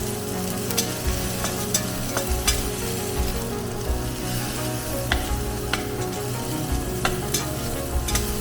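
Food sizzling as it fries in a pan, stirred with a utensil that clicks against the pan now and then.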